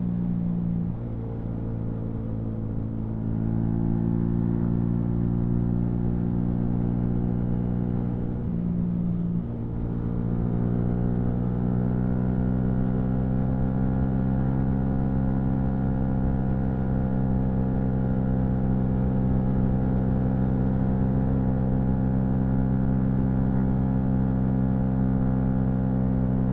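Yamaha MT-125's single-cylinder four-stroke engine running under way. The revs shift a few times in the first ten seconds, dipping briefly around nine seconds in, then hold a steady, slowly rising drone.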